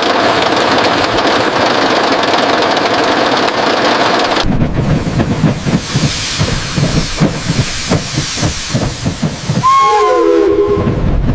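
Steam locomotive sounds: a steady loud hiss of steam, then from about four and a half seconds in an uneven run of rapid low pulses, with a brief falling whistle-like tone near the end.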